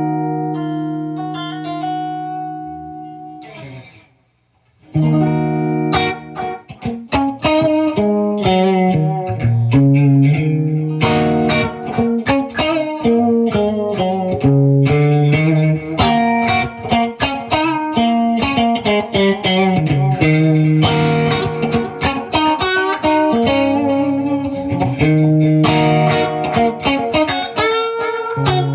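Electric guitar played through a delay/echo pedal with a compressor. A chord rings and fades over about four seconds with short repeating notes above it, stops for about a second, then a busy line of picked notes runs on with echo repeats trailing each note.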